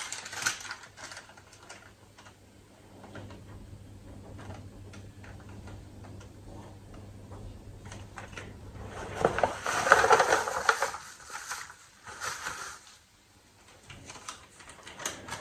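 Paper shopping bags and wrapping rustling and crinkling as items and a paper receipt are handled, in many small crackles, with a louder burst of crinkling about ten seconds in.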